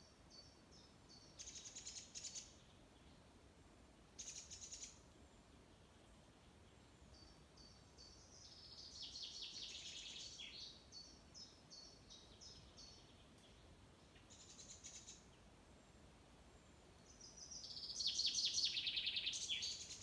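Songbirds singing in woodland: several short high phrases of quick repeated notes, and a louder, longer rapid trilling phrase near the end.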